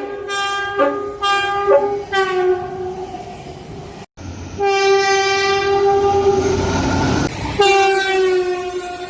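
Tilt Train's horn sounding several short toots. After an abrupt cut comes a long blast over the rumble of the passing train, then another blast that sags slightly in pitch.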